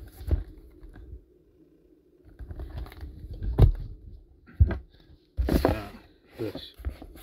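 Packaging being handled and opened: a few sharp knocks and rustles, with a longer scraping, tearing stretch about five and a half seconds in.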